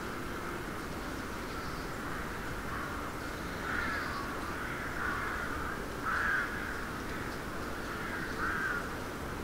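Birds calling, several loud calls a second or two apart over a steady background noise.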